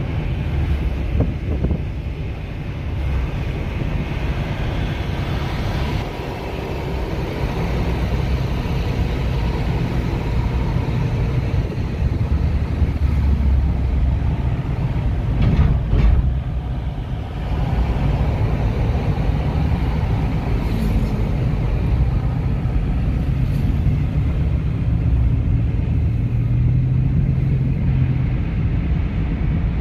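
Car driving, heard from inside the cabin: a steady low rumble of engine and tyres on the road, with one brief knock about halfway through.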